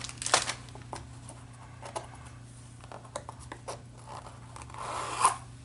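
Small handling sounds: scattered light clicks and rustles of a plastic packaging bag as a proto board is unpacked, with a short louder rustle about five seconds in.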